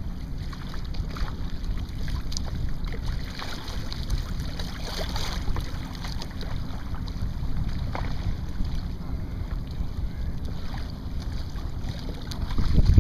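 Wind buffeting the microphone in a steady low rumble, over choppy water lapping at a kayak, with a few splashes of paddle strokes. A stronger gust swells up near the end.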